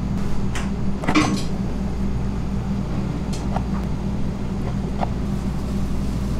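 Steady low hum of commercial kitchen equipment, with scattered light clicks and knocks. The loudest is a short clatter about a second in.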